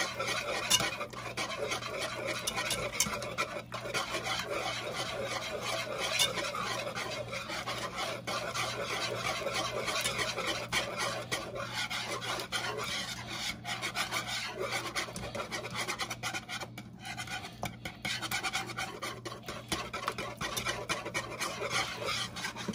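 Wire whisk scraping against a metal pot as it beats chunks of cream cheese into a thick roux-based cheese sauce, a continuous rasping with a brief lull about three-quarters of the way through.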